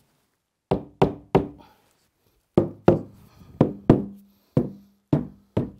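Rubber mallet tapping a 12 mm cement board, about a dozen sharp knocks in short runs of two or three, bedding the board down into the wet tile adhesive beneath it.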